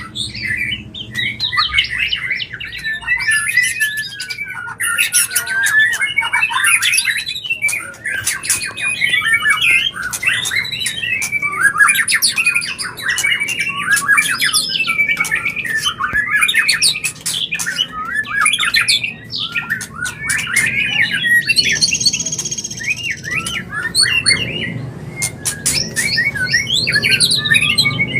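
White-rumped shama (murai batu) singing its breeding-season mating song: a continuous run of fast, varied whistled phrases mixed with sharp clicks, with a brief buzzy note a little over two-thirds of the way through.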